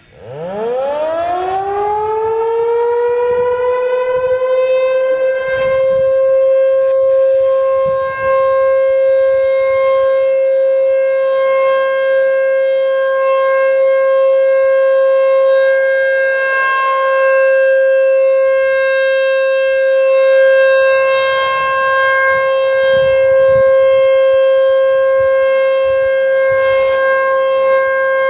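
American Signal T-128 rotating mechanical siren starting up and sounding the alert signal: its pitch climbs quickly over about two seconds as the rotor spins up, then holds one loud, steady wail.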